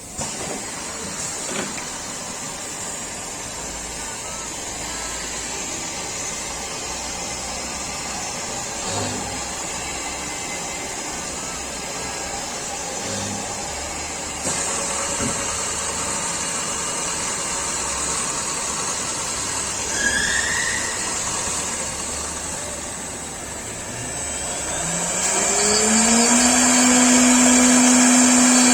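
Automatic woodworking drilling-milling machine running, with steady mechanical noise and a few light knocks. Near the end a spindle motor spins up: a whine rises quickly, then holds at a steady pitch and grows louder.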